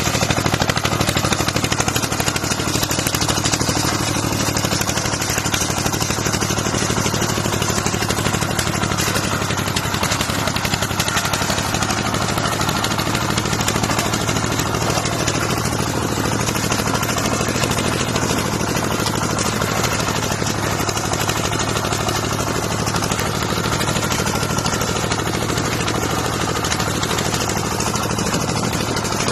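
Engine of a portable farm tractor running steadily, with a rapid, even beat of firing pulses.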